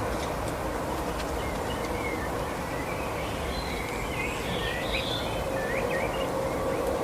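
Small birds chirping, many short quick notes that get busier in the second half, over a steady background noise.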